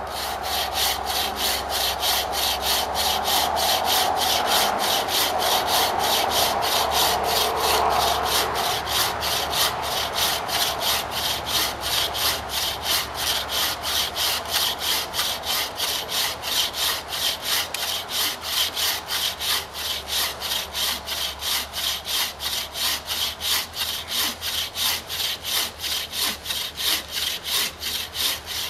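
Wooden-frame bucksaw cutting through a log about 4.5 inches thick, in fast, even back-and-forth rasping strokes.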